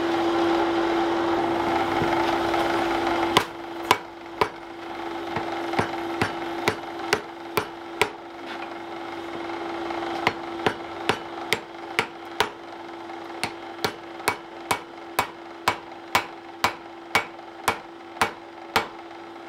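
Hand-hammer blows on a glowing wrought-iron collar and post at forge-welding heat: sharp strikes about two a second, in runs with short pauses, starting a few seconds in. Before the hammering a steady rushing noise, and a constant hum runs underneath throughout.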